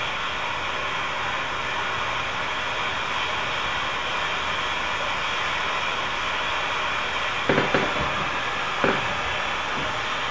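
Steady rushing of a waterfall, with two brief louder sounds about 7.5 and 9 seconds in.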